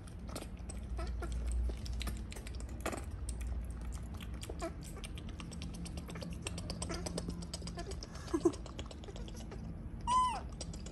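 Baby macaques making small squeaks, then two short low calls about eight seconds in and one loud high squeal that rises and falls about ten seconds in, over soft clicking.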